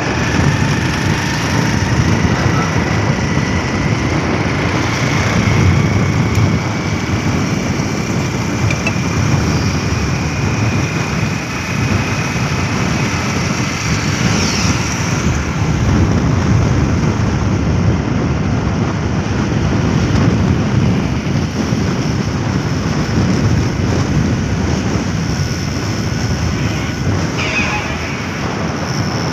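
Steady engine and road noise from a moving vehicle, with wind rumbling on the microphone. A faint whine rises slowly over the first ten seconds as it picks up speed.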